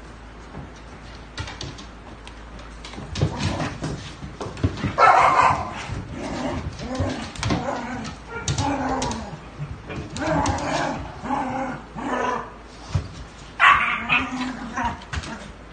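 Several dogs play-fighting, barking and yipping in short repeated bursts, with claws scuffling on a hard floor. The loudest barks come about five seconds in and again near the end.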